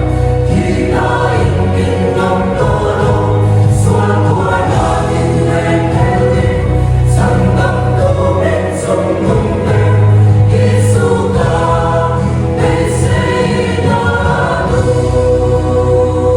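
A choir singing Christian gospel music over instrumental accompaniment, with sustained bass notes that change every second or two beneath the voices.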